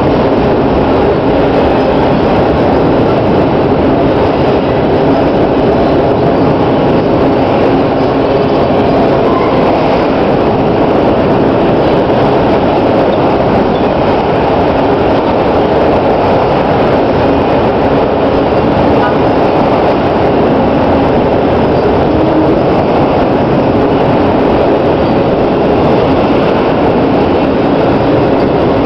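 Loud, steady rumble of a freight train's autorack cars rolling past: steel wheels running on the rails.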